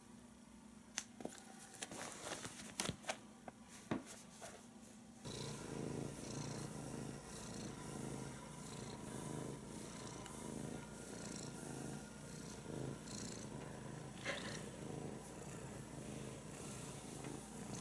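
Domestic cat purring steadily while its belly is rubbed, starting about five seconds in. Before that, a few sharp clicks and rustles.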